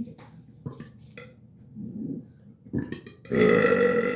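A man's deliberate, loud, drawn-out burp, forced out on purpose, starting about three seconds in after a few faint short sounds.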